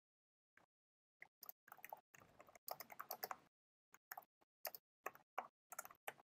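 Computer keyboard typing: faint, irregular keystrokes, with a short pause about halfway through.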